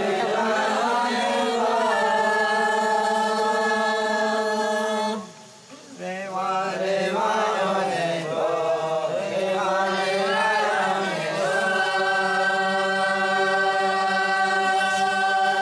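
A man's voice chanting a traditional Noke Koi song in long, held notes, with a brief pause about five seconds in before the chant resumes with gliding notes that settle again into a long held tone.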